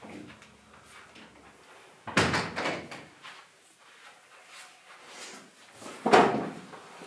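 Two loud bangs about four seconds apart, the second the louder, each with a short rattling tail, as of something being shut or knocked.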